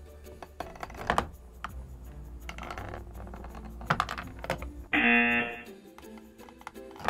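Plastic clicks and clacks from a Hungry Hungry Hippos game as its levers are pressed and the hippos snap at marbles, a few sharp clicks at a time. About five seconds in, a short, loud buzzing tone.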